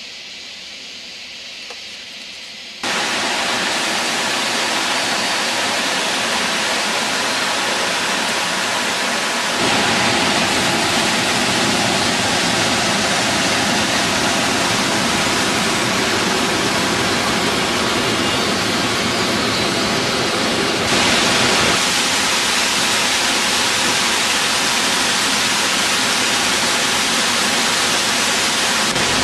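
Small waterfall rushing steadily over rocks. It is loud and even, and comes in suddenly about three seconds in after a quieter stretch of flowing water, then grows louder again about ten seconds in.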